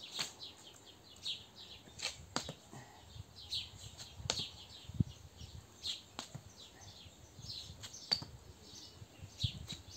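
Running shoes tapping and scuffing on stone paving as the feet step back and forth in a plank-position climbing exercise. Short scrapes are broken by a few sharp taps at uneven intervals.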